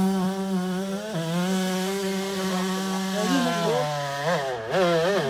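Two-stroke motocross bike engine revved hard and held at high revs while the bike is stuck in deep mud. The revs dip briefly about a second in, then rise and fall several times near the end.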